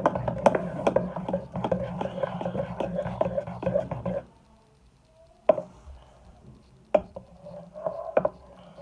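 Homemade slime being stirred in a bowl: rapid sticky clicking that stops about four seconds in, leaving a few single clicks, then starts again near the end.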